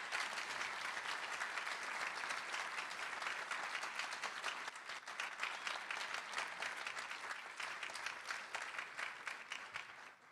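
Audience applauding at the close of a speech, many hands clapping steadily, then thinning and dying away near the end.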